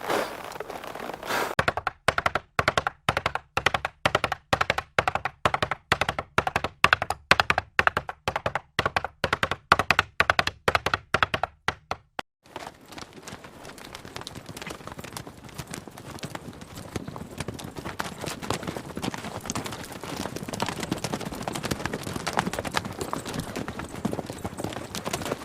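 A regular run of sharp knocks, a little over two a second, with dead silence between them, stops abruptly about twelve seconds in. A dense, steady crackling patter of many small clicks follows.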